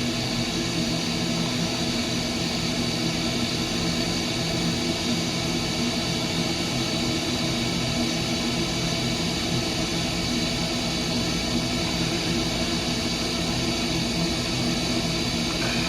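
Steady mechanical drone of running machinery, with several held hum tones and no change in level.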